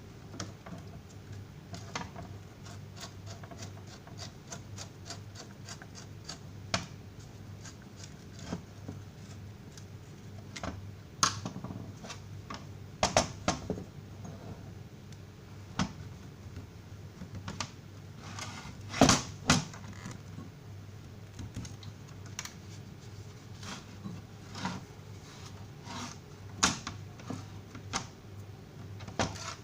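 Irregular light clicks and taps, with a few louder knocks, over a steady low hum. These are typical of handling small metal parts while fitting a new heater element.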